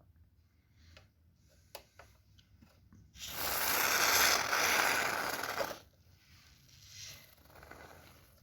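Can of Great Stuff expanding foam spraying into a bicycle frame: a sputtering hiss lasting about two and a half seconds, starting about three seconds in. A few small clicks come before it, and a fainter hiss follows.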